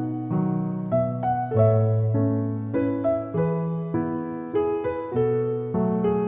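Background piano music, a slow gentle piece with a melody over a bass line, the notes struck about one or two a second and left to fade.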